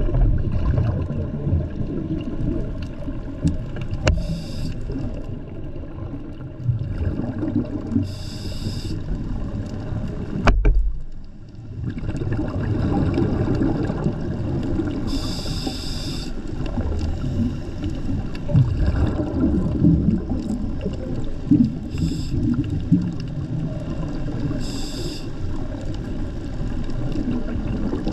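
Underwater camera audio: a steady low rumble of moving water against the housing, with five short, higher hissing bursts at irregular intervals and a brief lull about two-fifths of the way through.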